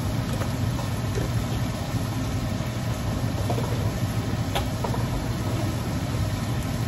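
Steady low hum over an even hiss from the kitchen stove under a wok of cooking cabbage, with a faint click about four and a half seconds in.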